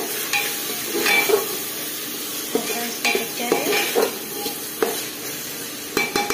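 Metal ladle stirring a thick curry in a metal pressure cooker, with irregular scrapes and clinks against the pot that leave a short ringing note, over a light sizzle from the cooking food.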